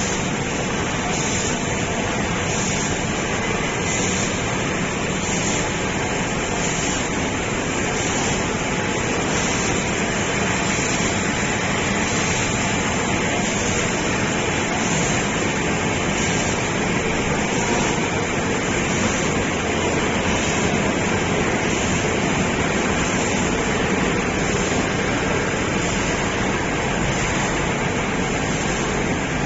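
Automatic film laminating machine running steadily in production, a continuous machine noise with a faint regular beat about once a second.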